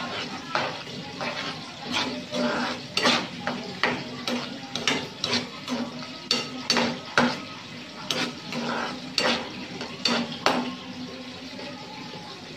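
A metal ladle stirring coconut-milk stew in a metal pan, with irregular clinks and scrapes against the pan's bottom and sides. The stirring stops near the end.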